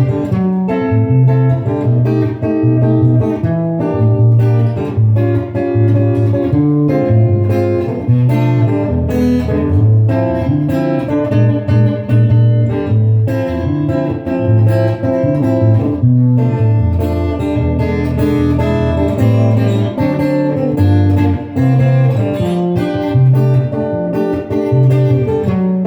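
Instrumental music led by guitar, plucked and strummed, over a repeating bass line.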